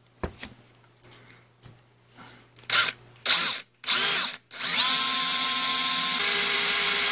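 Cordless drill boring a hole through an aluminium plate, started without a center-punch mark. It gives three short trigger spurts, then a steady whining run of about three seconds whose pitch shifts partway through.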